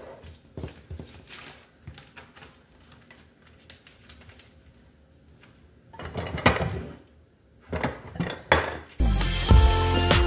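Handling of a metal tortilla press while corn tortillas are made: light clicks and plastic-sheet rustling, louder handling a little past halfway as a masa ball is pressed, then a few sharp knocks. Background music comes in about nine seconds in.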